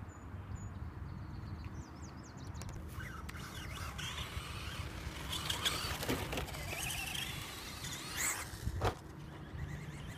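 ECX electric RC short-course truck driving on a dirt track. A motor whine rises and falls with tyre and dirt noise, loudest from about three seconds in. A sharp knock comes near the end.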